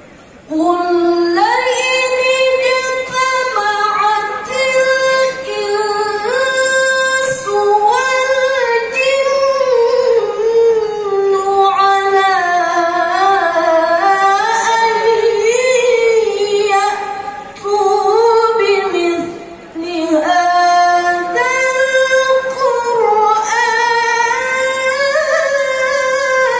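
A woman reciting the Quran in the melodic tilawah style, one voice holding long, ornamented notes that rise and fall. It begins about half a second in and has two brief pauses about two-thirds of the way through.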